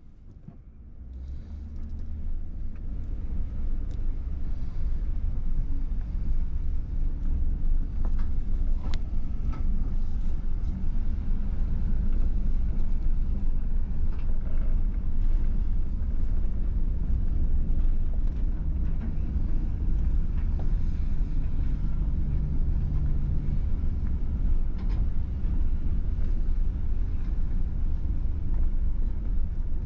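Steady low rumble of a vehicle on the move, with a faint hum that holds for a few seconds in the middle.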